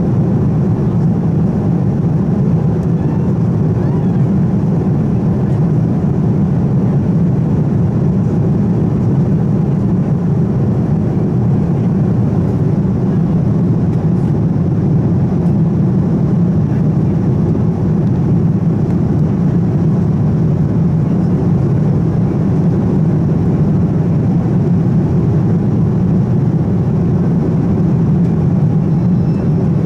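Steady in-flight cabin noise of a Boeing 787-9 heard at a window seat: an even, low drone of the engines and the air rushing past the fuselage, unchanging throughout.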